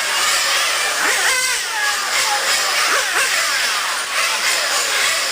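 Several 1/8 scale nitro RC car engines buzzing and revving together, their high-pitched whine sweeping up and down as the throttles are blipped. A sharp rev rises about a second in, and another at about three seconds.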